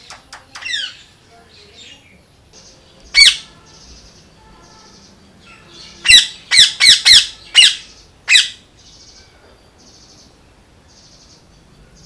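Green parakeet squawking: one loud squawk about three seconds in, then a quick run of six loud squawks a few seconds later. A faint buzz pulses evenly in the background.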